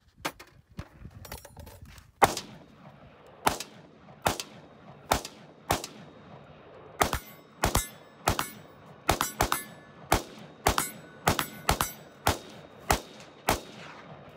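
Rifle fire: after a few faint clicks, a rapid string of about twenty shots, spaced roughly half a second to a second apart, each crack trailing a short echo.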